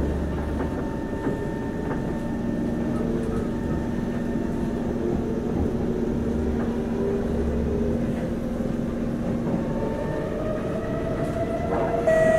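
Singapore MRT train running between stations, heard inside the carriage: a steady low rumble and hum of wheels and motors. Several steady tones set in just before the end.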